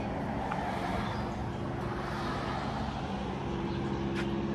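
Steady road traffic noise from vehicles passing on the road beneath the footbridge, with a low engine hum growing stronger in the second half.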